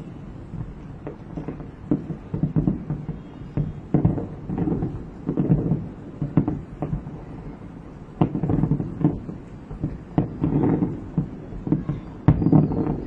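Distant aerial fireworks display: many deep booms in quick, irregular succession, with a sharp, loud bang near the end.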